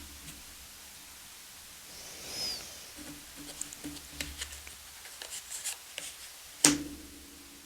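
Thick tarot cards being handled in a flip-through: scattered light clicks and rustles of card on card, with one sharp snap of a card near the end.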